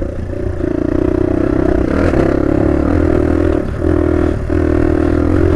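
Small motorcycle engine running under steady throttle while riding, with a low rumble beneath the engine note. The note lifts slightly about half a second in and drops back briefly twice past the middle.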